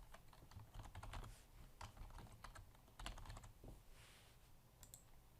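Faint, irregular keystrokes on a computer keyboard as a short name is typed in, in quick clusters with brief pauses.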